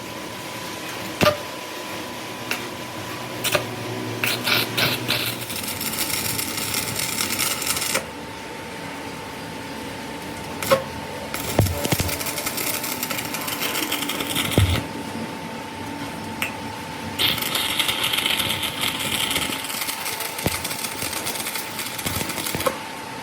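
Workshop machining noise on a crankshaft repair: a steady hum under several stretches of a power tool working metal, with a few sharp metal knocks in between.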